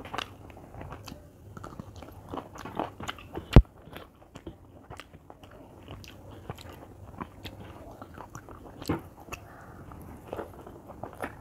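Close-up eating by hand: chewing and crunching of fried spring-onion greens and potato with rice, with fingers mixing the food on a metal plate. A sharp knock about three and a half seconds in.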